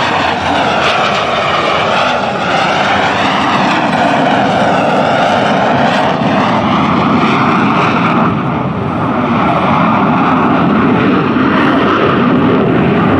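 Aermacchi MB-339 jet trainer's turbojet engine passing and climbing away, a loud continuous jet rush whose pitch sweeps up and down in the first six seconds, then settles into a steadier, duller sound.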